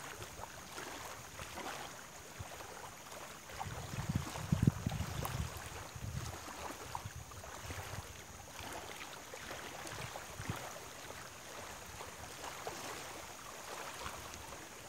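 Small waves lapping at the reservoir's edge, a steady watery wash, with a brief louder low rumble about four seconds in.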